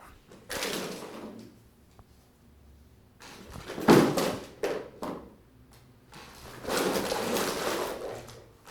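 A series of sliding, scraping handling noises, several swishes of about a second each, with a sharp knock about four seconds in.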